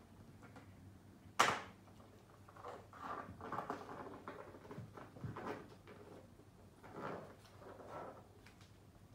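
A cat high on matatabi (silvervine) rubbing and rolling against the base of a kitchen cabinet, making a series of soft scuffs and bumps against the cabinet front. There is one sharp knock about a second and a half in.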